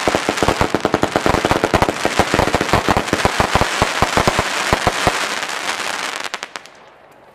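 Weco 'Magisterial' firework cake bursting overhead: a dense stream of rapid pops and crackles over a hiss, which thins to a few scattered pops and dies away about six to seven seconds in.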